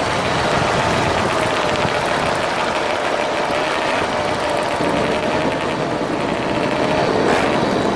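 Moped engine running steadily during a ride, a continuous engine note that wavers slightly in pitch over road and wind noise.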